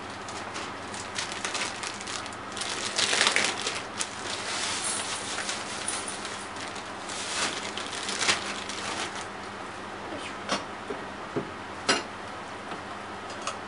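Crinkling and rustling of a plastic bag of panko bread crumbs being handled and poured into a steel bowl, loudest about three seconds in and again around seven to eight seconds, with hands patting prawns in flour in a metal tray. A few sharp clicks near the end.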